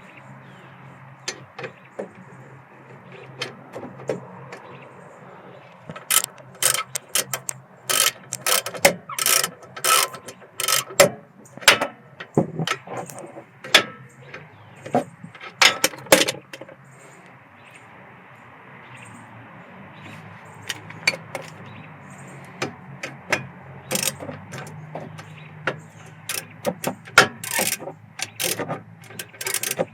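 Hand ratchet clicking in repeated bursts while the brake caliper bolts are run in and tightened, over a steady low hum.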